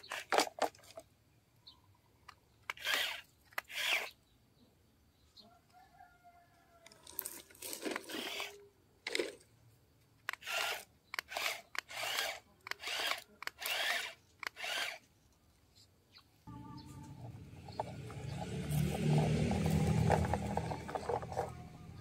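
A toy radio-controlled excavator's small electric motors and gearboxes whirring in about a dozen short bursts as it works its tracks and boom. For the last five seconds or so a louder, steadier low rumble takes over.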